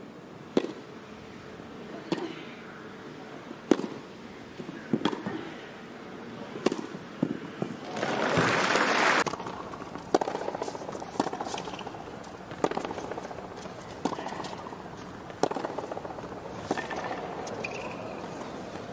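Tennis rally: racket strikes on the ball, a sharp crack about every one and a half seconds, over a low murmur from the stands. A burst of crowd applause about eight seconds in is the loudest part, and then another rally of racket strikes follows.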